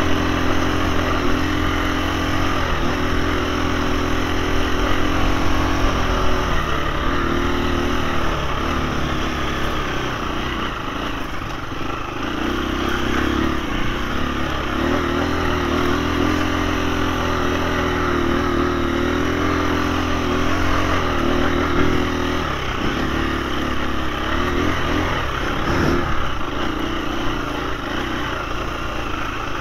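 KTM 350 four-stroke single-cylinder dirt bike engine being ridden at low to moderate revs. The revs rise and fall with the throttle and ease off briefly several times.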